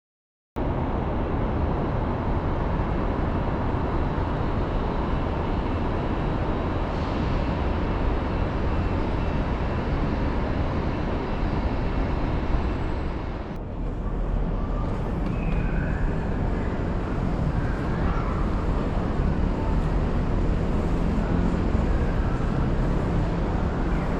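Steady urban road-traffic noise, a dense hum of passing vehicles, with a brief dip about halfway through.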